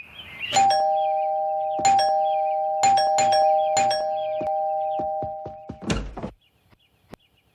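Two-tone ding-dong doorbell chime rung repeatedly in quick succession, the two tones ringing on under each new press. It ends with a loud thud about six seconds in.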